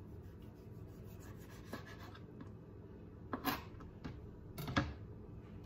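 Chef's knife slicing a dill pickle spear on a plastic cutting board: quiet scratching cuts, then a louder scrape about three and a half seconds in and a sharp knock of the blade on the board just before five seconds.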